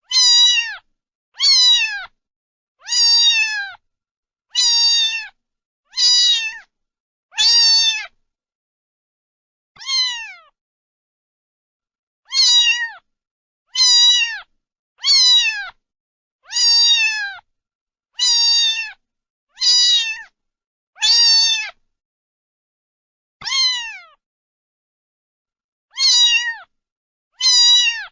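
A cat meowing over and over: short, high meows that fall slightly in pitch at the end, about one every one to two seconds, with a few longer pauses.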